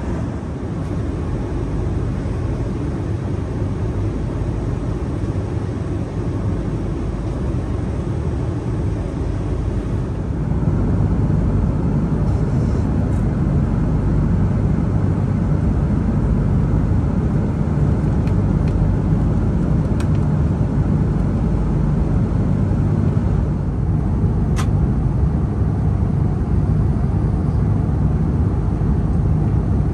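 Airbus A330 cabin noise at cruise: a steady, low rush of airflow and engines that steps up louder about ten seconds in. Two faint clicks in the second half.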